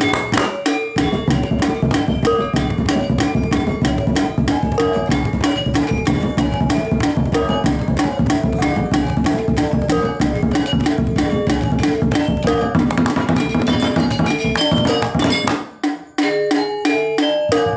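Balinese gamelan playing fast, dense interlocking figures on bronze metallophones, with drums beneath. The low drum layer comes in about a second in and drops out for a moment near the end while the metallic strokes carry on.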